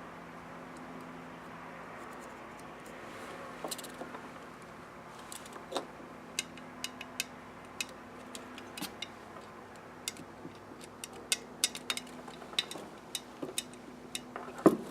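Small metal carburetor parts and hand tools clicking and clinking as they are handled, in scattered, irregular taps starting a few seconds in, over a steady low hum.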